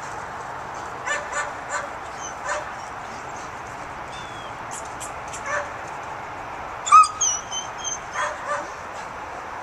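Weimaraners yapping and barking in short bursts, excited at a squirrel up a tree. The loudest, about seven seconds in, is a high yelp drawn out into a whine.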